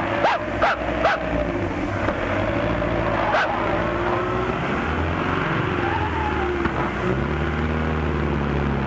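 Car driving with its engine running steadily. A dog barks three times in quick succession near the start and once more about three seconds in. A steadier, deeper engine drone comes in near the end.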